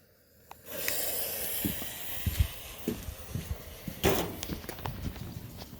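Lit fuse of a 12-shot banger firework cake hissing and sputtering, with irregular low thuds under it and one sharp crack about four seconds in.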